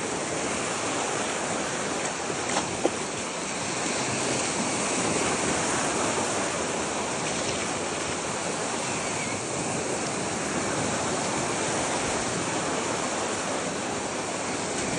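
Ocean surf washing onto a beach: a steady wash of noise, with one short tap a little under three seconds in.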